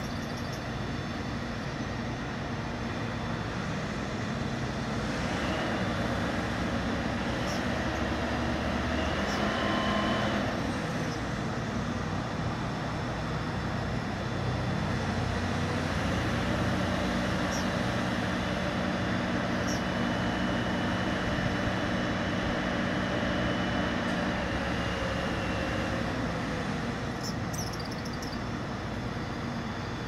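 Crane's engine running steadily, twice stepping up in pitch and holding higher for several seconds as it works the hoist.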